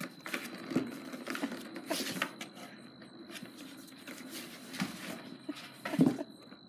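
A cat pawing at a plastic circular track toy with a cardboard scratch pad, making irregular clicks, taps and rattles, with a louder knock about six seconds in. A faint steady high whine runs underneath.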